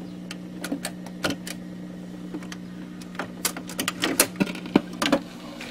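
1960 Birch tube-type record player with a VM changer, switched on and being readied to play: a steady low hum with scattered, irregular clicks and light clunks.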